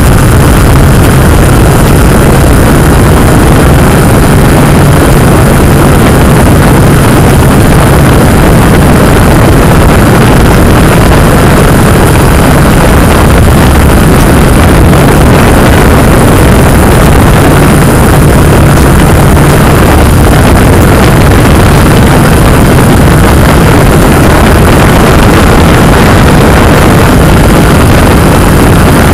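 Drone propellers and motors running in steady flight: a loud, even buzz with a low hum underneath that does not change.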